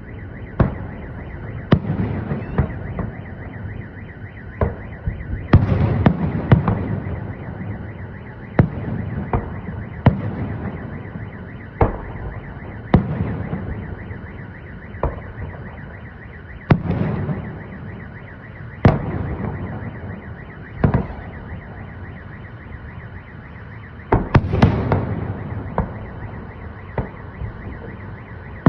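Aerial firework salute shells bursting overhead, a sharp bang every second or two, each followed by a rumbling echo, with quick volleys about six seconds in and near the end. A car alarm sounds steadily underneath.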